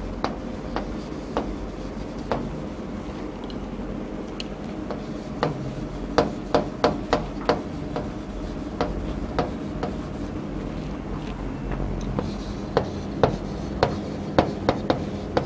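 Chalk writing on a chalkboard: irregular sharp taps and short scratches as each letter is struck and drawn.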